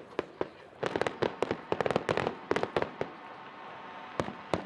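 Fireworks display: rapid volleys of sharp cracks and bangs, thinning to a few scattered reports in the last second or so.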